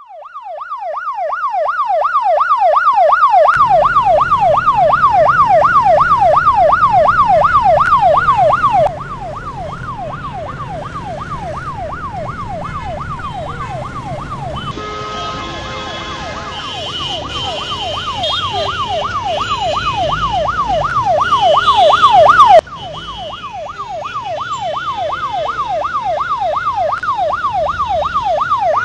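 Ambulance siren wailing in a fast, even rise and fall, over the rumble of road traffic. It swells louder, drops suddenly about a third of the way in, swells to its loudest about three quarters of the way through, then drops suddenly again and starts to swell once more.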